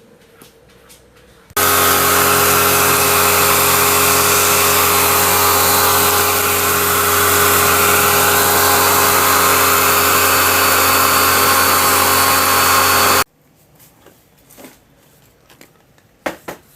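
An electric motor running at a steady speed for about twelve seconds, with a loud whirring hum and hiss. It starts suddenly at full speed and cuts off just as suddenly.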